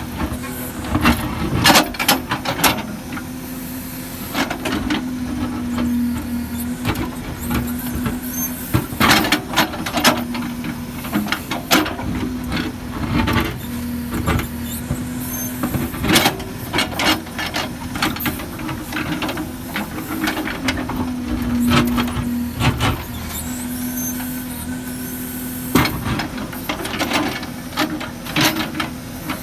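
Case 770 backhoe loader running, a steady engine drone with frequent sharp clanks and knocks from the working machine.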